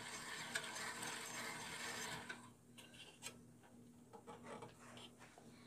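Craftsman 10-inch three-wheel bandsaw turned by hand while the blade is checked after tensioning: a soft rasping rub of the blade and wheels for about two seconds, then a few light clicks as the hand moves to the lower wheel.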